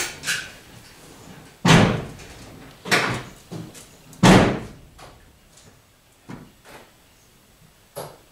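Subaru Impreza's car door slammed shut three times, heavy thuds a little over a second apart, followed by a few lighter knocks and clicks.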